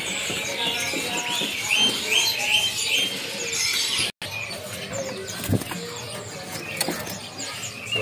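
Caged songbirds chirping: a quick run of about seven rising chirps in the first three seconds, then a brief dropout about four seconds in, followed by softer scattered chirps and a few knocks.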